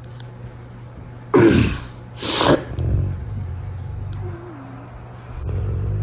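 Sleeping Rottweiler snoring: two loud, harsh snores about a second apart, followed by lower, steadier rumbling snores.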